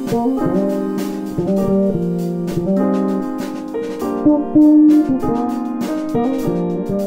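Background music led by a piano or electric piano in a light jazz style.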